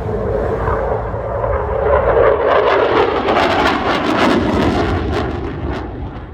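F/A-18F Super Hornet's twin GE F414 turbofan jets in a loud low pass, crackling sharply as it goes by, the pitch falling as it passes, then fading.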